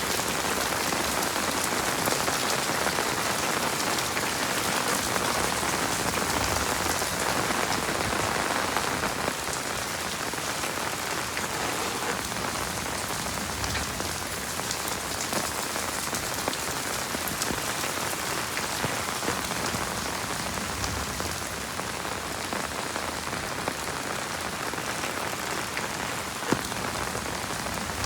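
Heavy rain falling steadily, a dense patter of drops. It eases slightly about a third of the way in, and there is a single sharp tap near the end.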